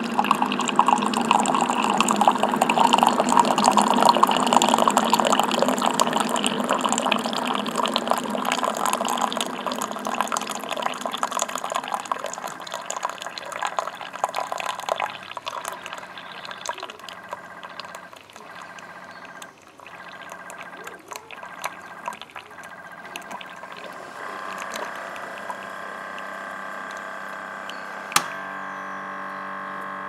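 Keurig K55 single-serve coffee maker brewing: coffee streams and splashes into a ceramic mug over the machine's steady hum. The flow thins and sputters about halfway through. In the last few seconds the machine runs on with a steady hum as the brew finishes, with one sharp click near the end.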